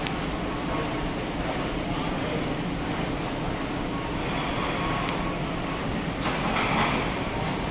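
Stationary steam engines running together, a steady mechanical rumble filling the shed, with a short burst of hiss about six seconds in.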